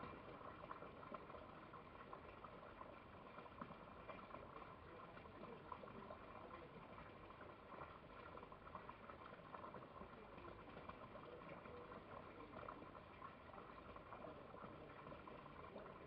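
Near silence: a faint, steady hiss with a light crackle.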